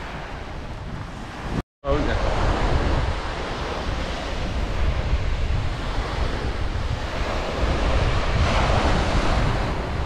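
Small waves breaking and washing onto a shingle beach, with wind buffeting the microphone. The sound cuts out completely for a moment just under two seconds in.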